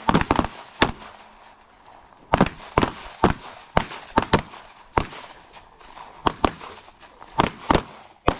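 Gunshots: more than a dozen sharp single reports at irregular spacing, some in quick pairs, from several shooters firing at targets.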